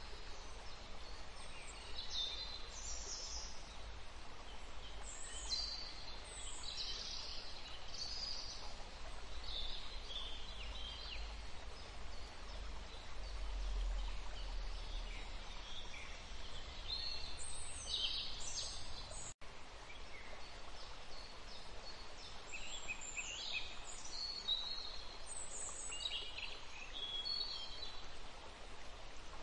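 Nature ambience: short, high bird calls and chirps every second or so over a steady hiss, with a faint low rumble. The sound drops out for a split second about two-thirds of the way through.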